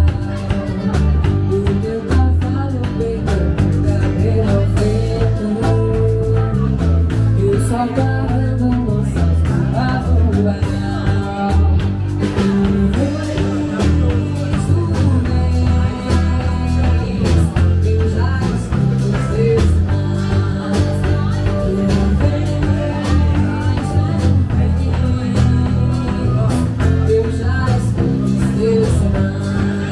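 A song playing: a singing voice over guitar, bass and a steady drum beat.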